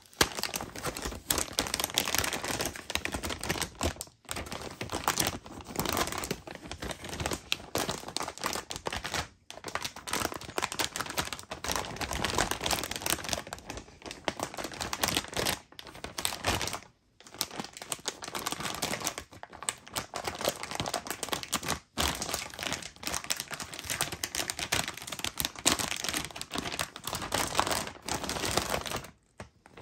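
Clear plastic seal bag around a graphics card crinkling and crackling as it is pulled and peeled off by hand, almost without let-up, with a few brief pauses.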